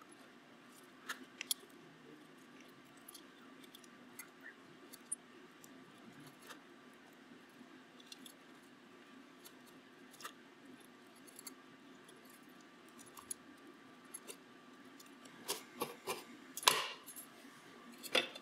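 Small scattered clicks and taps from soldering a connector onto a circuit board and handling it, over a faint steady hum. A cluster of louder clicks and knocks comes near the end as the board is handled.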